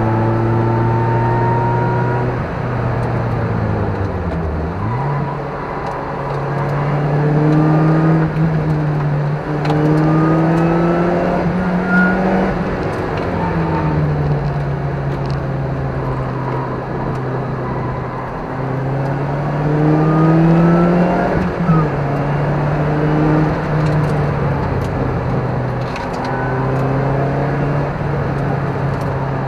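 Sports car engine heard from inside the cabin during a track lap. The revs climb and fall several times as the car accelerates and lifts off, with a brief dip about four seconds in and sharp drops about twelve and twenty-one seconds in. A few sharp clicks sound over the engine.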